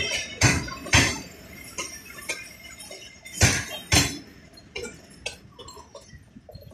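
Passenger coach wheels clattering over rail joints as a train runs close by: sharp clacks in pairs about half a second apart, the loudest about half a second to a second in and again at three and a half to four seconds, then lighter clicks that grow fainter toward the end.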